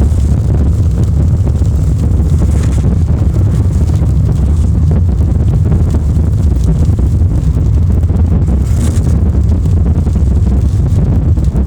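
Car driving in the rain: a steady low rumble of engine and road with the wash of rain and tyres, and a few brief hissing swells.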